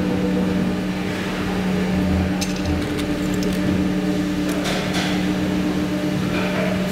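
Steady hum of factory machinery, with a few faint light clicks of small plastic parts being handled.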